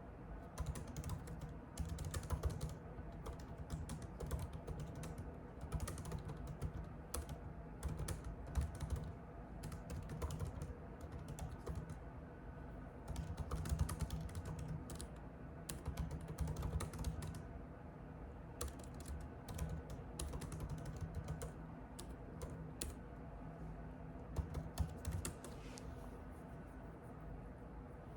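Typing on a computer keyboard: quick, irregular key clicks coming in bursts, thinning out near the end, over a low steady rumble.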